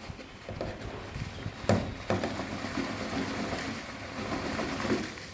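Handling of the vacuum cleaner's dust tank and its contents: a sharp knock under two seconds in, then irregular rustling and light clatter.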